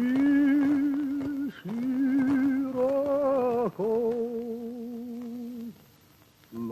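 A man singing a slow song alone and unaccompanied, in long held notes with a wide vibrato, phrase after phrase. The voice stops for a moment about six seconds in, just before another phrase begins.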